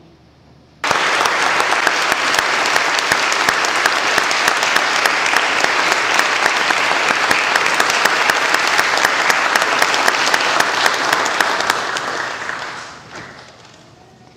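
Audience applauding: the clapping starts suddenly about a second in, holds steady, and dies away near the end.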